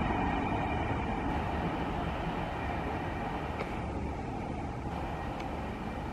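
Double-stack container freight train rolling along the track, a steady rumble of wheels on rails that fades away as the tail of the train draws off.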